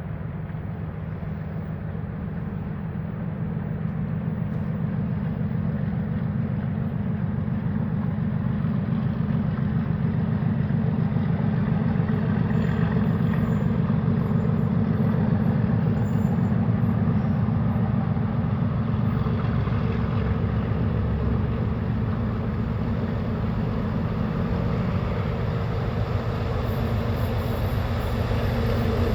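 Pair of class 37 diesel locomotives, English Electric V12 engines working hard under power. The sound is continuous and grows louder over the first ddozen seconds, stays loud, and swells again near the end.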